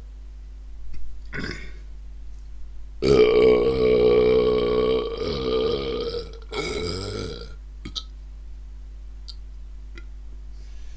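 A deliberate, loud belch about three seconds in, lasting some three and a half seconds, followed straight away by a shorter second belch.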